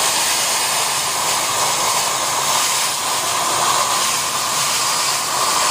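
Hồng Ký plasma cutter cutting, its torch giving a steady, loud hiss.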